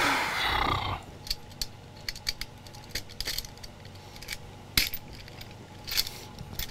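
Stainless-steel barn door track and its small hardware parts clinking and clicking as they are handled and fitted together. There is a brief rustling scrape in the first second, then scattered light metal ticks, with two sharper clicks about five and six seconds in.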